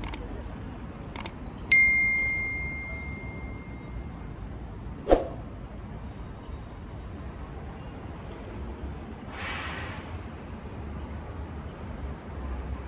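A single bright metallic ding that rings out and fades over about two seconds, just after a couple of sharp clicks. A sharp knock follows a few seconds later and a short hiss near the end, over a steady low rumble.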